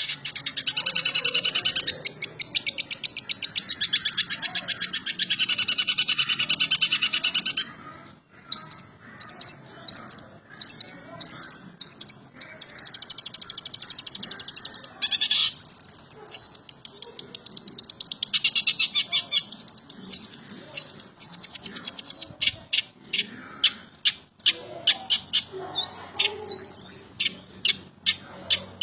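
Long-tailed shrike (cendet) singing a varied, mimicking song: a fast, continuous high chatter for about the first seven seconds, then a run of short broken phrases and quick high notes.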